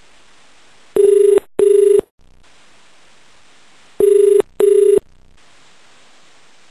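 Indian telephone ringback tone heard over a Skype call as it rings out: two double rings about three seconds apart, each a pair of short, low buzzing tones, over a steady faint line hiss.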